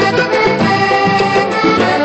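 Vallenato band playing an instrumental passage: accordion melody over the caja drum's hand-struck rhythm.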